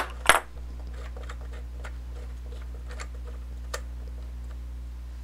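Adjustable wrench clinking twice against a metal hex fitting on an aluminium housing, then light metallic ticks every second or so as the fill-port fitting is unscrewed by hand, over a steady low hum.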